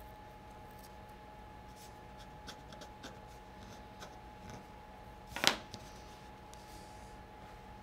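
Faint scratching and small clicks of veneer tape being picked and peeled off the face of a glued-up marquetry panel, with one short, louder rasp about five and a half seconds in. A faint steady hum sits underneath.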